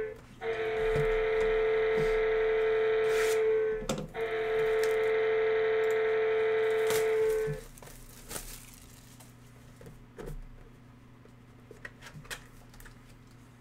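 Steady electronic alarm tone from a red siren beacon light: one buzzing note sounding in blasts of about four seconds, with two short breaks, cutting off about seven and a half seconds in. After it come faint clicks and rustling of hands handling trading-card boxes.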